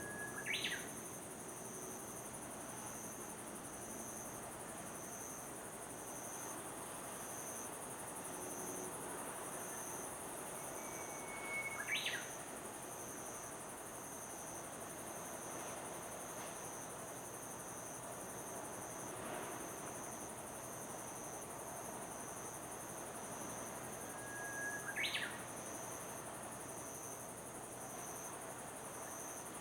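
Insects chirping steadily in a high, evenly pulsing trill, over a faint background hiss. A short call, a brief whistle snapping into a sharp chirp, sounds three times, about twelve seconds apart.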